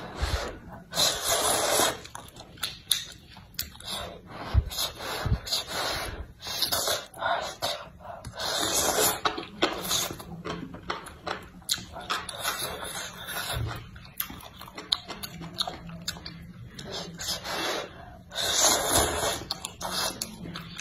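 Noodles slurped from a bowl of soupy broth: several long, hissing slurps about a second each, the biggest near the end, with wet chewing and lip smacks clicking in between.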